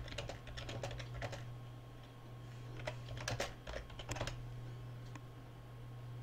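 Typing on a computer keyboard: two short runs of keystrokes, the second ending a little past four seconds in, over a faint steady low hum.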